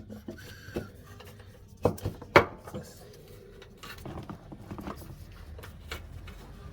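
Scattered metallic clinks and knocks of tools and parts being handled while a rear air suspension spring is fitted, with two louder knocks about two seconds in.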